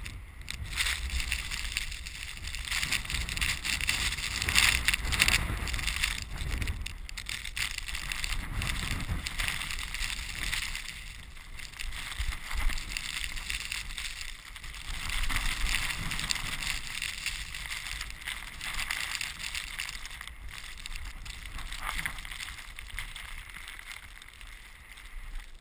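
Snowboard riding through deep powder: a hissing rush of snow under the board that swells and fades every few seconds, over a low rumble of wind on the microphone.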